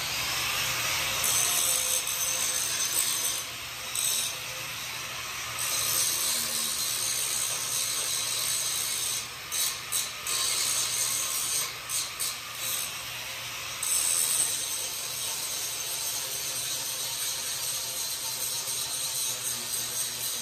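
Steady, harsh noise of metalworking on a steel car frame, with a few brief stops and restarts around the middle.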